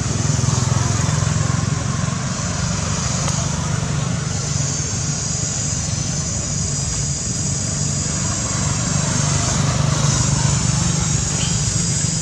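Steady low engine hum with a high, steady buzz over it; the buzz grows stronger about four and a half seconds in.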